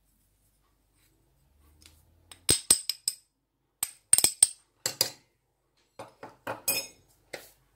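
Kitchenware clinking and tapping against a stainless steel mixing bowl: a run of sharp, irregular clinks starting about two and a half seconds in, some with a short ring.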